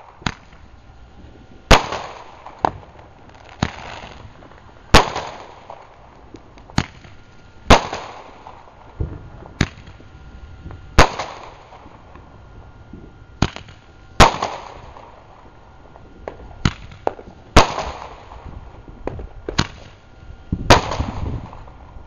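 Fireworks exploding: about fifteen sharp bangs at irregular gaps of one to three seconds, each trailing off in an echo.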